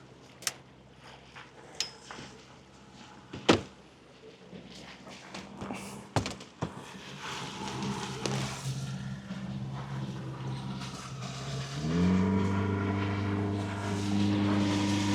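Small boat's engine running at a low, steady speed, with several sharp knocks in the first seven seconds and water splashing along the hull. About twelve seconds in, the engine speeds up with a quick rise in pitch and runs louder.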